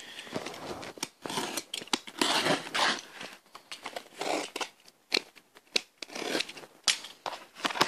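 Utility knife slicing through the packing tape and cardboard seam of a shipping box, in short, irregular scratchy strokes with clicks.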